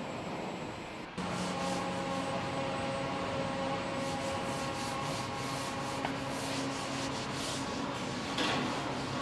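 Rubbing and swishing of hands working fibre-optic strands into a headliner, over a steady workshop hum of several held tones. The sound jumps up suddenly about a second in.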